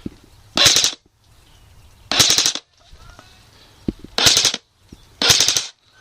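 Airsoft rifle firing four short full-auto bursts of rapid shots, about a second and a half apart, with a single sharp click just before the third burst.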